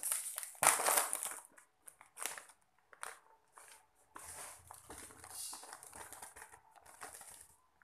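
Plastic snack packaging crinkling and rustling as it is handled and opened. Loud bursts come at the start, then short scattered crinkles. A longer stretch of rustling follows as a clear plastic bag is held up and its contents are shaken out.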